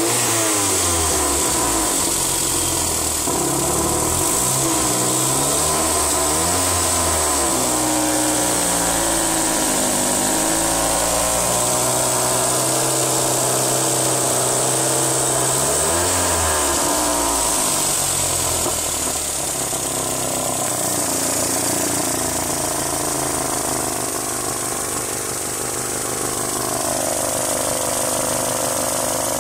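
Mazdaspeed Protege's turbocharged 2.0-litre four-cylinder engine running, its pitch rising and falling several times as it is revved, with a steady high whine over it. This is an unexplained engine noise that the owner cannot identify.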